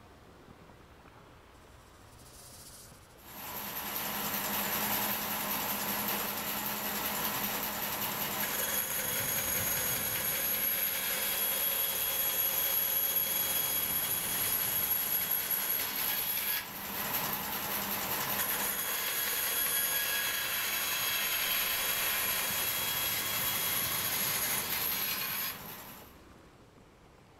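Band saw running and cutting through a plywood floor panel: a steady whirring hiss that starts about three seconds in, dips briefly about halfway, and stops shortly before the end.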